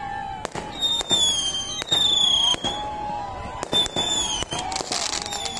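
Fireworks display: a rapid string of sharp bangs and cracks, with several high whistles from whistling fireworks that each dip slightly in pitch and last under a second. A rushing hiss comes about five seconds in.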